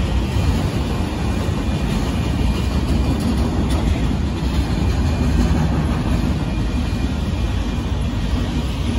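Autorack freight cars of a Union Pacific train rolling past, a steady rumble of steel wheels on the rails.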